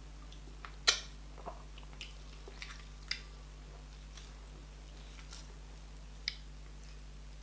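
Close-miked eating sounds: wet mouth smacks and clicks while chewing a mouthful of meat in okra soup, with soft squishes from garri fufu being pinched by hand. The clicks are scattered and short, and the loudest comes about a second in.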